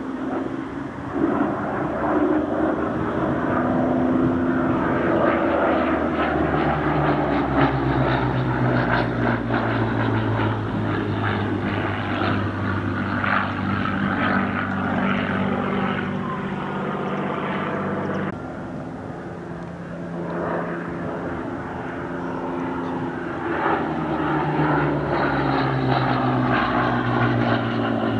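Supermarine Spitfire's V12 piston engine during a display flypast, its note falling in pitch as the aircraft goes by; this happens twice, with a sudden break between the two passes about two thirds of the way in.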